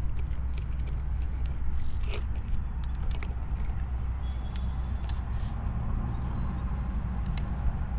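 Steady low background rumble with scattered light clicks and taps.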